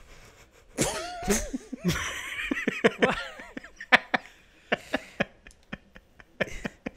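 Several people laughing together in short, irregular bursts, starting about a second in.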